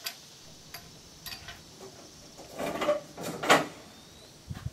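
Metal clicks and clacks from the falling-block action of a Lyman Ideal Sharps rifle being worked by hand: a few light clicks, then a louder clatter about two and a half to three and a half seconds in.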